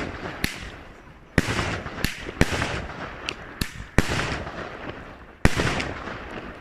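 Fireworks going off: a string of sharp bangs, about eight in all, some in quick pairs, each trailing off in a rolling echo.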